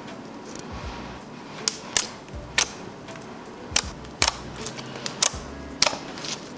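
Thick, glossy slime being pressed and stretched by hand, giving off sharp popping clicks at irregular intervals, about a dozen in all.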